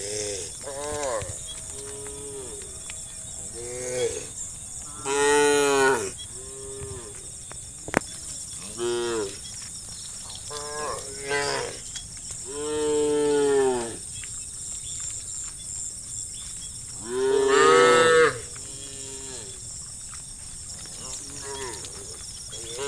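Cows in a herd mooing again and again, about a dozen separate calls that rise and fall in pitch, the longest and loudest about five, twelve and seventeen seconds in. A steady high hiss runs underneath.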